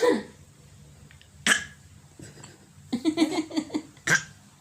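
A small child giving short, sharp coughs on request: one about a second and a half in and another near the end, with a run of quick little voiced huffs in between.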